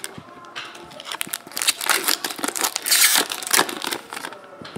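Foil trading card pack wrappers being crinkled and torn open by hand, in quick irregular crackles, with a louder burst of crinkling about three seconds in.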